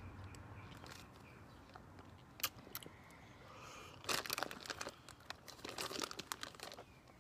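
Faint crinkling of a Warheads candy's plastic wrapper being unwrapped: a couple of soft clicks first, then runs of crackling from about four seconds in.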